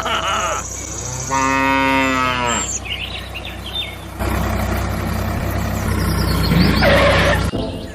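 A cow moos once, a long call held at a steady pitch for over a second, with short bird chirps and a low steady hum in the background.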